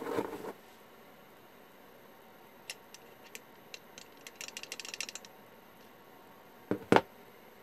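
Tool clicking and tapping against the terminal bolts of a car-audio capacitor as they are bridged to short it out: scattered clicks, a quick run of faint ticks about halfway through, then two sharper knocks close together near the end.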